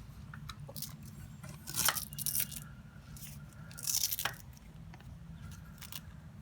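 Handling noise from the makeshift clutch repair: tape and a Velcro strap being fiddled with, giving short crinkling, scratchy bursts about two seconds in and again about four seconds in, with small clicks between.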